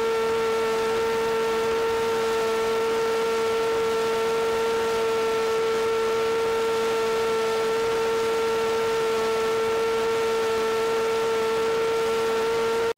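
Electric motor and propeller of an EasyStar RC plane running at a steady throttle, giving an unchanging high hum over a hiss of air.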